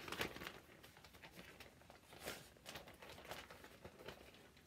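Faint crinkling of a clear plastic zip-top bag being handled, in a string of short irregular rustles.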